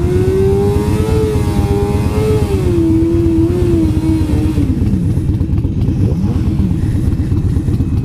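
Harley-Davidson V-twin running loud and ragged with its exhaust pipe fallen off, so it runs open, with a pitched whine over the engine pulses that drops away about halfway through.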